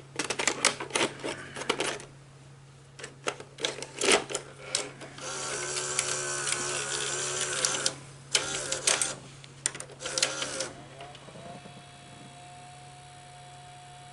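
Betamax VCR's mechanism at work: runs of clicks and clunks, a motor whirring for about three seconds in the middle, then more clicks. About eleven seconds in, a faint steady whine slides up into pitch and holds over a low hum.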